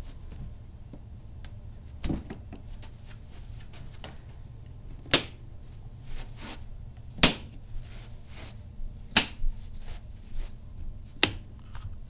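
Hard-shell guitar case latches snapped shut one by one: four sharp metal clicks about two seconds apart, with lighter handling clicks and rustles between them.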